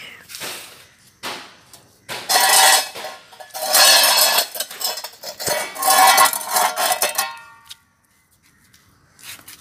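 A metal dog food bowl is pushed about by a dog, clattering and scraping across concrete in three loud bouts. Each bout leaves a metallic ring, and the last ring fades out near the end.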